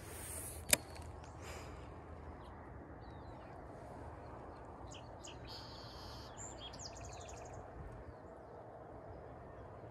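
Small birds chirping, with a quick trill about seven seconds in, over a steady low rumble of wind on the microphone. One sharp click comes just under a second in.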